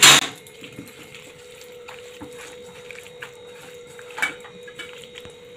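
Hand kneading chicken pieces in a thick masala paste in a metal bowl: soft, wet squelches and a few light taps against the bowl, after a short sharp sound right at the start. A faint steady hum runs underneath.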